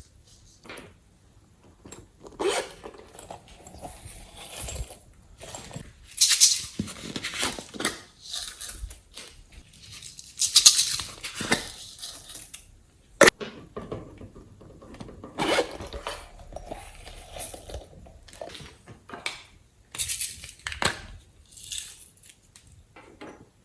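Slime being kneaded and stretched by hand: irregular wet squishing and crackling bursts, with a single sharp pop about 13 seconds in.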